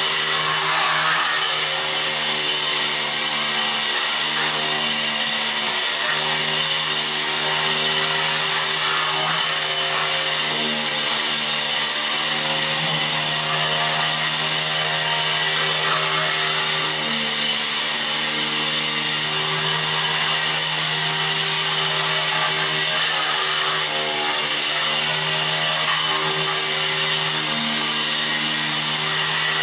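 Electric walk-behind floor scraper running, its front blade stripping stuck rubber carpet backing off a concrete floor: a steady buzzing hum over a wide scraping hiss.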